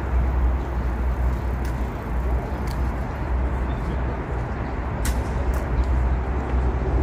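Steady outdoor background noise with a heavy low rumble and a few faint clicks.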